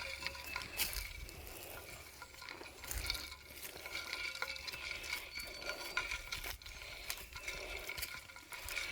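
Ice cubes clinking and rattling in a carried water bottle, a few faint scattered clinks over faint steady high-pitched background tones.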